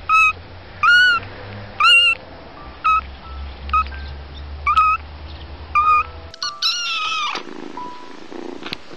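Kitten mewing: seven short, high-pitched mews about once a second, then a longer, louder call about seven seconds in.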